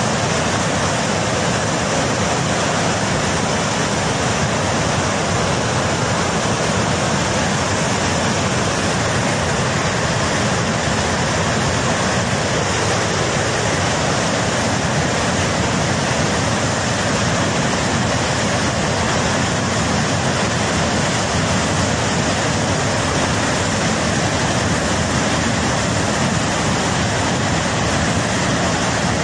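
Flash-flood torrent of churning water rushing through a river valley: a loud, steady, unbroken rush.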